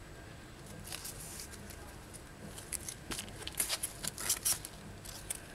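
Folded paper of an origami model rustling and crinkling as fingers handle it: a scatter of crisp crackles, thickest about three to four and a half seconds in.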